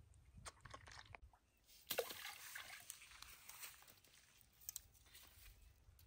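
Faint splash at about two seconds, then a rustle of wet pondside weeds as a hooked fish is pulled from the water and handled, with a few small clicks before and after.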